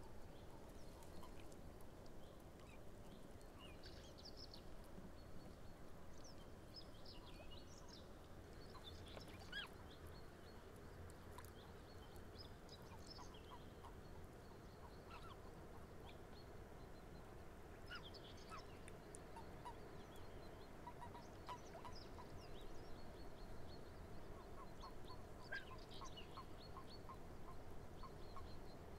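Faint outdoor quiet with soft, low quack-like animal calls coming from a reedy pond, and scattered short, high bird chirps over it.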